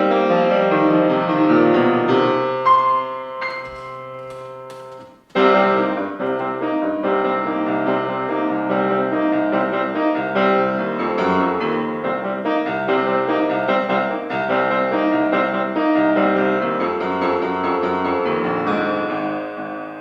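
Piano playing a slow classical-style piece. About four seconds in the playing thins out and fades to a brief near-silence, then comes back suddenly with a loud chord and carries on full.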